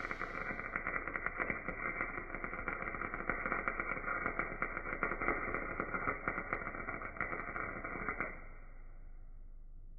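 MIG welder arc crackling steadily, with sharp spatter pops, as a bead is run on steel bumper plate; it stops abruptly about eight seconds in.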